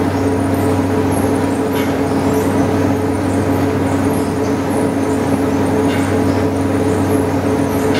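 Belt-driven line shafting and rice-milling machinery of a steam-powered rice mill running steadily: a continuous mechanical din with a few steady low hums.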